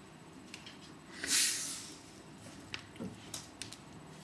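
Plastic fizzy-drink bottle's screw cap twisted open, releasing a short hiss of escaping gas about a second in, followed by a few light plastic clicks and taps as the bottle is handled.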